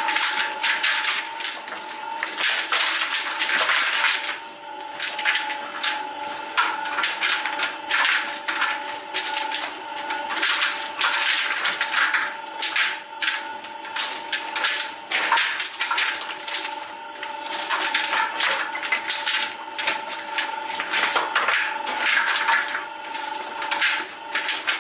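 Fast, irregular knocks and scrapes of handling work over the steady hum of a running machine, which holds several tones.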